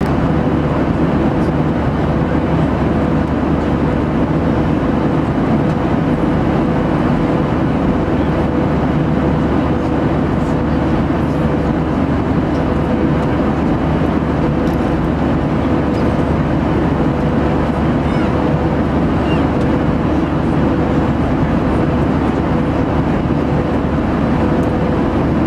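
Cabin noise of a passenger jet in cruise: a steady, loud drone of engines and airflow, with one held hum running through it.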